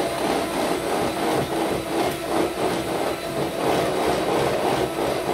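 Electric hand mixer running steadily, its beaters whisking runny crepe batter in a metal bowl.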